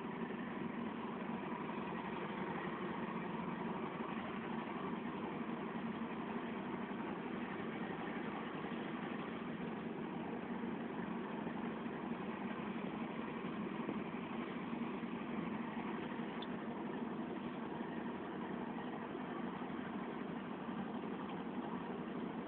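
Boat engine running steadily at an even speed, a constant low drone without changes in pitch.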